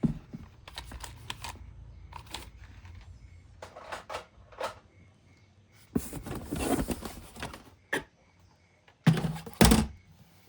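Toys and packaging being handled at close range: scattered clicks and knocks, a longer rustle about six seconds in, and two loud thunks near the end.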